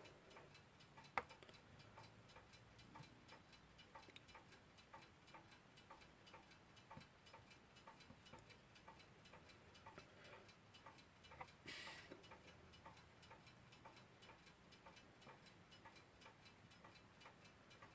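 Westclox Big Ben Style 1 alarm clock movement ticking faintly and evenly as the newly fitted balance wheel swings, its beat not yet adjusted. A sharper click comes about a second in and a short hiss near the middle.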